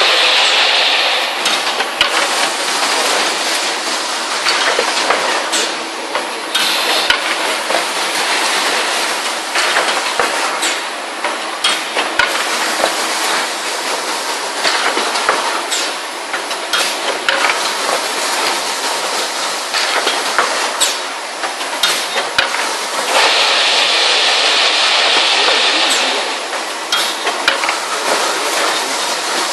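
Two-piece folder gluer machine running: a steady mechanical clatter with frequent irregular clicks and knocks. A strong hiss rises over it twice, briefly at the start and again for a few seconds about twenty-three seconds in.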